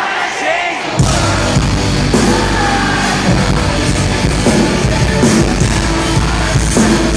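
Rock band playing live through a club PA system, recorded loud in the crowd, with drums, distorted guitars and vocals. The bass drops out for the first second, then the full band crashes back in and keeps playing.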